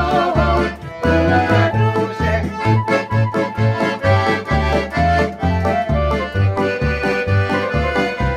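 Piano accordion playing a lively Ukrainian folk tune alone between sung verses, its melody held over a steady pulsing bass about twice a second.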